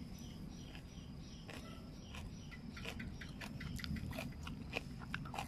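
A person chewing crisp vegetable fern shoots (rau dớn) in a salad, with irregular crunches beginning about a second and a half in. The crunching marks the shoots as fresh and crisp.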